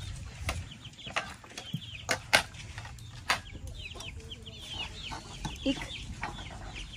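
Chickens clucking, with many short, quick calls overlapping, busiest in the second half. Several sharp clicks and knocks in the first few seconds, the loudest about two and a half seconds in.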